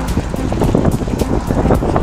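Wind buffeting the microphone during a mountain-bike descent, with the bike rattling and clicking over rough trail.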